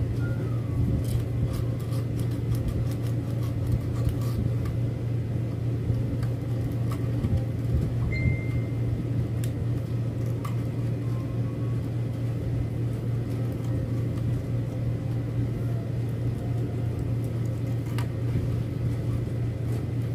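A steady low mechanical hum, like a motor running, with faint scattered clicks from hands working cord and thread. A brief high tone sounds about eight seconds in.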